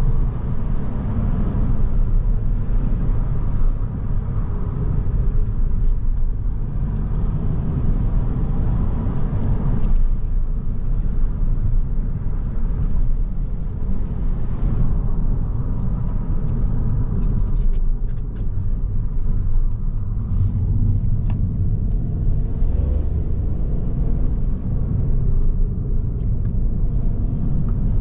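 Ford Focus 1.0 EcoBoost Hybrid three-cylinder petrol engine pulling the car along, its note rising and falling with the throttle, over steady tyre and road rumble.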